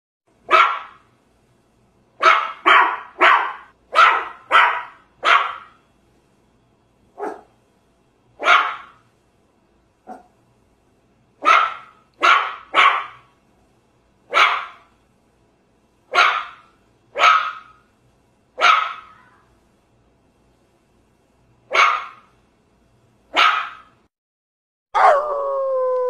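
A puppy barking: about twenty short, high barks, some in quick runs of three or four, with pauses of a second or more between others. About a second before the end, a dog starts a long, held howl that sinks slightly in pitch.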